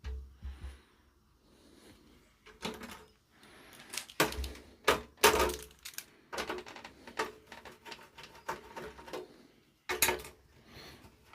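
Irregular clicks, knocks and clatter of metal parts being handled on an amplifier's metal chassis while an access panel is being freed and opened, with a cluster of knocks near the middle and a sharp knock near the end.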